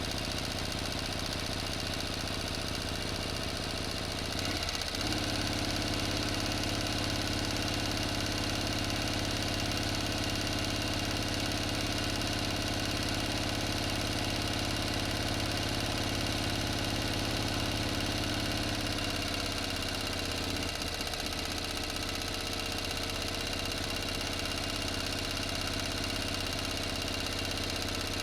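Motor engine running steadily. Its note shifts slightly and gets a little louder about five seconds in, and changes again near twenty seconds.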